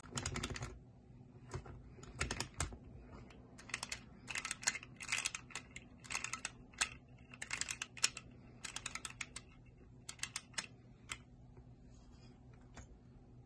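Tin clockwork wind-up toy being wound by hand: short runs of ratchet clicks from the key, twist after twist, stopping near the end.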